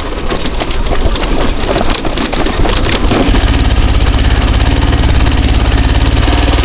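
Motorcycle engine being turned over to get it going after it has stalled: irregular noise at first, then from about three seconds in a steady, rhythmic chugging. The bike stalled suddenly and won't start.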